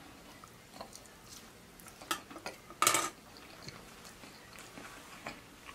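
Close-miked eating: a person biting and chewing fried chicken, with wet mouth clicks scattered throughout and a short, louder noise about three seconds in.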